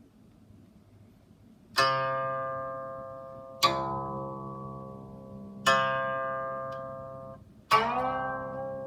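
Chinese zither being played: four slow plucked notes about two seconds apart, each ringing and dying away, the last sliding upward in pitch after the pluck.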